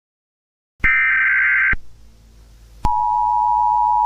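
Emergency Alert System broadcast tones: a harsh, buzzy data burst of about a second, then faint hiss, then about three seconds in the steady two-tone attention signal starts and holds.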